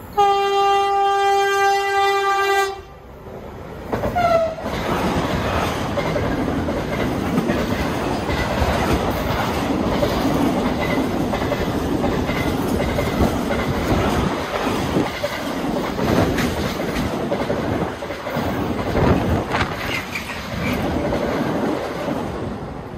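A Mercitalia E494 electric locomotive sounds one steady horn blast for under three seconds. A short falling tone follows about four seconds in. Then the freight train's container wagons rumble past, with wheels clattering over the rail joints, fading near the end.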